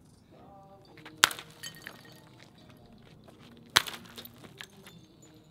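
Golf club smashing glass bottles: two sharp smashes about two and a half seconds apart, each followed by broken glass clinking and tinkling.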